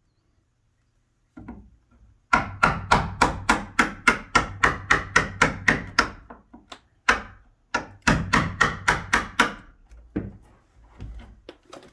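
Hammer driving a wood chisel into a wooden door jamb: runs of quick, sharp blows, about three a second, with a short break in the middle and lighter taps near the end.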